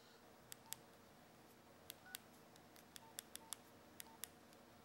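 Phone keypad buttons pressed one after another, about ten faint clicks, several with a short beep: a number being dialled.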